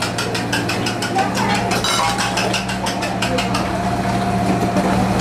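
Metal spatula clattering rapidly against a wok over a steady low hum; the clatter thins out after about three seconds.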